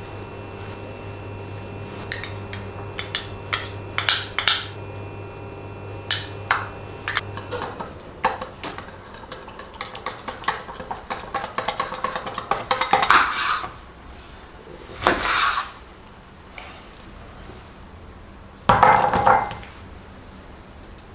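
A few sharp clinks on a small glass bowl, then a metal wire whisk beating oil and spices in the glass bowl in quick scraping, clinking strokes that grow louder. A low background hum cuts off about a third of the way in. Two brief louder noises come later.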